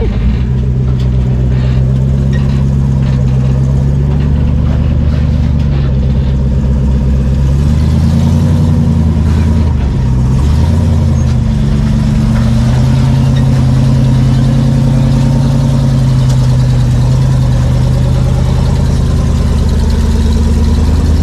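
Rock-crawling rig's engine running at low revs under load as it crawls up a rock ledge, a steady low drone that rises and dips slightly with the throttle around the middle.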